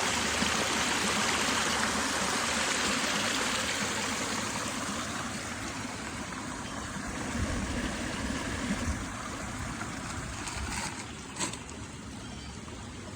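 Stream water running steadily over rocks, a constant rushing that eases a little partway through, with two short clicks near the end.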